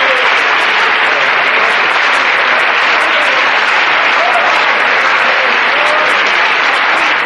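Crowd applauding steadily, with faint voices calling out in it.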